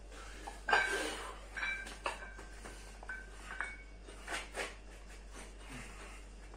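Metal weight plates on a pair of dumbbells clanking and clinking against each other as they are lifted and moved. The loudest clank comes about a second in, followed by several lighter ringing clinks.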